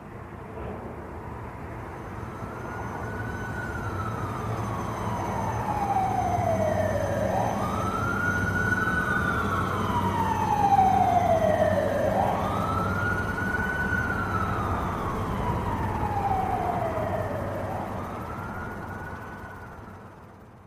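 A wailing siren: each cycle rises quickly, then falls slowly, about every five seconds, over a low steady rumble. It grows louder to a peak about halfway through, then fades away.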